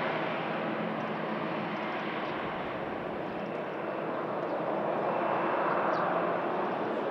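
Jet engines of an Airbus A319 airliner on its landing roll, a steady rushing roar that eases over the first few seconds and swells again about five to six seconds in.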